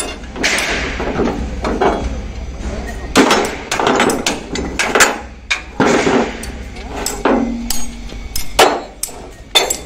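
Hammer blows on a steel truck chassis rail held in a screw clamp: irregular sharp metallic clanks, about a dozen, one ringing on briefly about seven seconds in.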